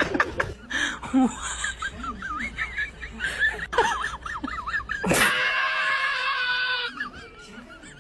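High-pitched laughing and squealing. About five seconds in, a person screams loudly on one long held note for nearly two seconds.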